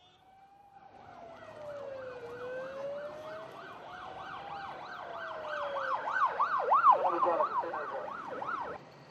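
Emergency vehicle sirens: a slow wail rising and falling every couple of seconds, overlaid by a fast yelp of about three to four sweeps a second. The sirens grow louder, peak about two-thirds of the way in, and cut off abruptly near the end.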